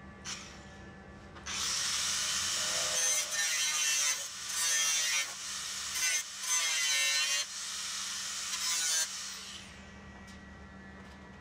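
Angle grinder grinding steel, throwing sparks: a loud harsh grind in stretches of a second or so, each broken by a short dip as the disc lifts off the metal, then the grinder spins down with a falling whine.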